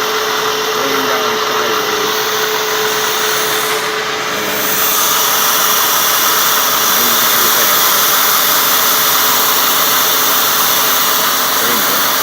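Milling machine roughing out a large internal keyway: a steady machine whine with the hiss of cutting. About four and a half seconds in the tone drops away and the cutting noise grows louder and brighter, then holds steady.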